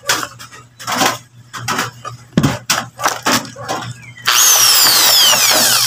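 Unboxing handling noise: a small framed solar panel knocking and rustling against a cardboard box and plastic wrapping, with a dull thump partway through. About four seconds in comes a loud scrape of over a second with squealing tones falling in pitch, as the panel drags against the packaging.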